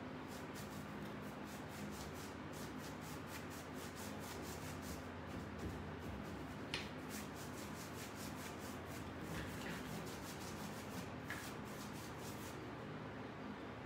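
Paintbrush scrubbing back and forth on a wooden cabinet door: quick, even rubbing strokes, with a couple of light clicks.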